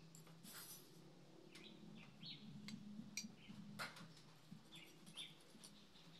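Faint bird chirping: short rising chirps, several in a row, with a few soft scrapes of a small metal scoop digging into potting soil.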